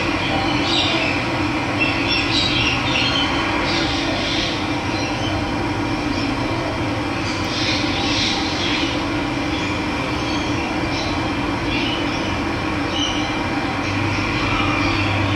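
Steady rush of running water, with birds chirping briefly now and then above it.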